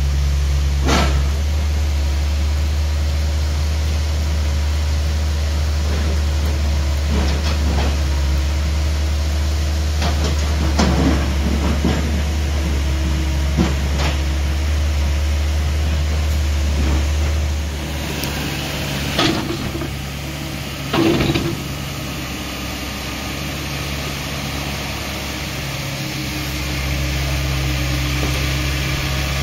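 Hydraulic excavator's diesel engine running steadily while digging a pond, with occasional knocks and scrapes; the engine gets quieter about two-thirds of the way through.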